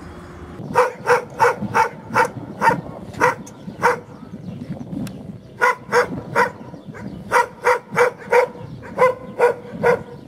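Sage Ashayeri shepherd dog barking repeatedly, about three barks a second. It starts under a second in and comes in three runs, with short pauses about four and seven seconds in.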